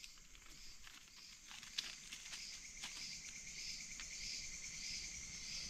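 Insects, crickets among them, chirping faintly: a high chirp repeating about every two-thirds of a second over a steady high trill, with a few faint clicks in the first half.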